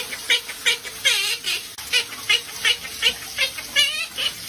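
Pet parrot making a run of short, high chirps, about two or three a second, with a warbling call near the end.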